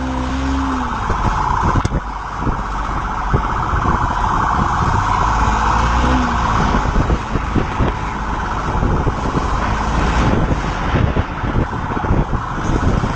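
Engine and road noise of a vehicle driving at speed: a continuous low rumble with irregular knocks and a steady mid-pitched drone.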